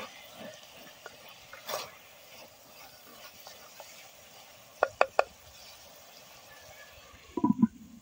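Wooden spoon stirring chunks of meat in a pot over a wood fire, with the meat sizzling steadily. Three sharp taps come about five seconds in, and a few heavier knocks come near the end.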